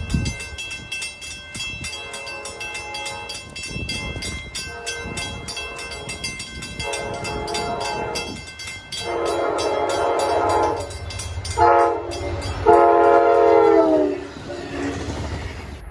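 Locomotive air horn sounding the grade-crossing signal, long, long, short, long, the last blast sliding down in pitch at its end, over the low rumble of the passing train. A bell rings rapidly, about three strokes a second, through the first part.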